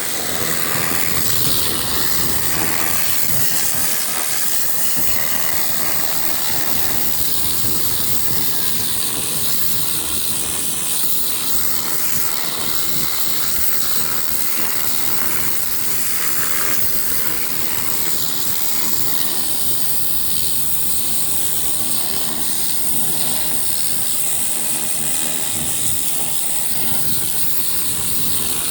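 Pressure washer running, its high-pressure water spray hissing steadily over the low drone of its motor.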